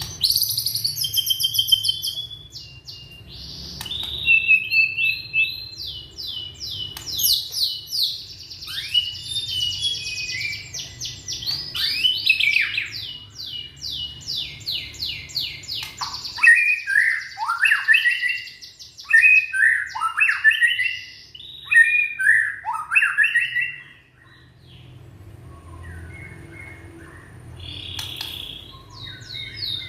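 A young white-rumped shama (murai batu) singing: fast trills of rapidly repeated high notes, then, about halfway through, a run of lower, sweeping phrases. It falls quiet for a few seconds and starts again near the end.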